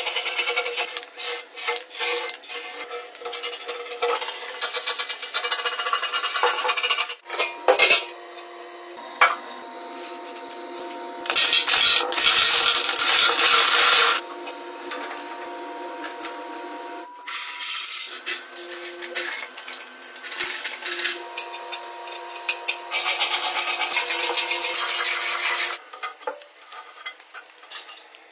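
Rapid rasping and scraping of an abrasive disc stripping softened paint from a steel motorcycle fuel tank, later stone chips clattering into the tank. Two loud stretches of even hiss, each about three seconds long, stand out in the middle and near the end.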